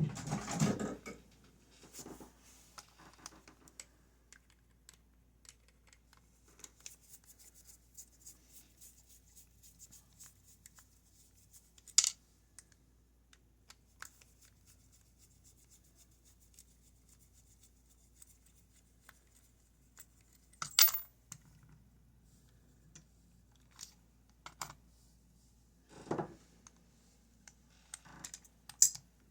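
Small metal lock parts and tools being handled: scattered faint ticks and light scraping, with a handful of sharper clicks spread through.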